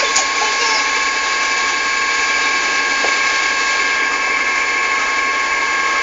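A steady mechanical whir: an even hiss with several high steady tones, unchanging throughout.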